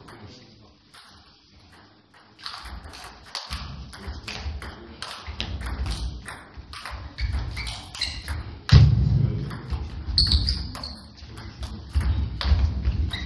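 Table tennis rally: the celluloid/plastic ball clicking sharply off bats and table in quick succession, with heavy low thuds, the loudest a sudden one about nine seconds in, in a large echoing hall.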